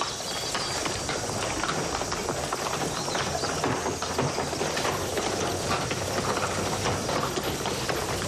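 Horse hooves clip-clopping on cobblestones at a walk, a dense, irregular run of clicks over a steady background of movement.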